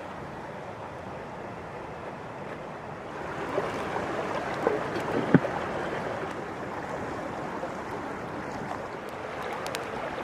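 Moving water: a steady wash of flowing or lapping water, with a few small clicks and knocks around the middle, the sharpest one a little past halfway.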